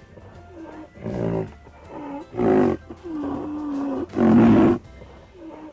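Rhinoceros calling: a series of deep, pitched calls about once a second, one of them held steady for about a second about three seconds in.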